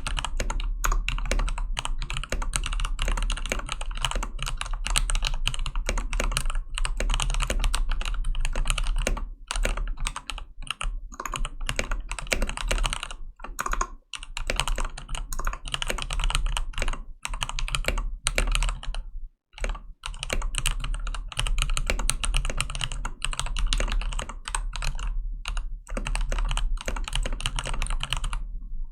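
Continuous fast typing on a Gigabyte K83 mechanical keyboard with lubed Cherry MX Red linear switches and white PBT keycaps, its stabilised keys lubed with Permatex and band-aid modded, with a few brief pauses.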